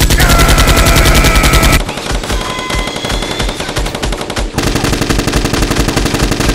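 Rapid automatic gunfire sound effect: a loud burst of machine-gun fire, a somewhat lighter stretch of shots about two seconds in, then a second loud burst a little past halfway.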